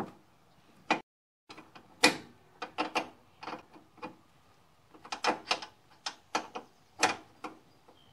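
Hand tools clicking and clanking against metal parts in irregular sharp strokes, with a short break about a second in.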